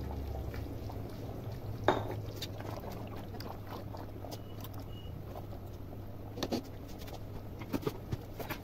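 Chopped tomatoes tipped into a pressure cooker of simmering meat and spices, then a spatula stirring the thick mixture. One sharp knock about two seconds in and a few lighter knocks of the spatula against the pot near the end, over a steady low hum.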